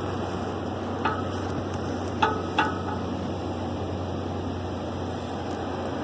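Handling noise from a camera being moved around under a car: a steady rustling hiss over a low hum, with three light metallic clicks about one, two and two-and-a-half seconds in.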